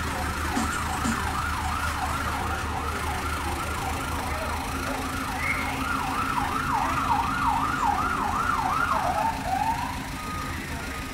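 Emergency-vehicle siren on a fast yelp, its pitch sweeping up and down about twice a second and growing louder toward the end, then one last slower sweep before it stops about nine and a half seconds in.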